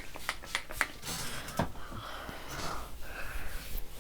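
Trigger spray bottle of hair detangler spritzing in short quick pumps, about four in the first second. After that come softer rustling and rubbing sounds.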